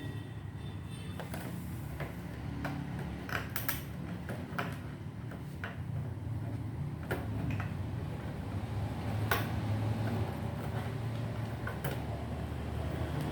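Scattered small clicks and taps of hands handling parts and tools inside an opened all-in-one desktop computer, with a few sharper clicks, over a steady low hum.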